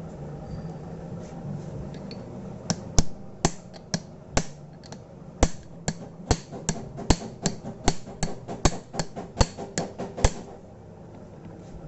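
Hammer blows on the metal parts of a Mahindra Bolero gearbox during reassembly: about twenty sharp strikes at two or three a second, starting nearly three seconds in and stopping a little after ten seconds, over a low steady hum.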